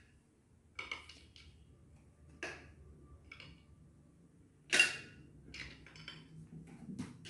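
A handful of short clinks and knocks of plates and utensils being handled on a table, the loudest about five seconds in.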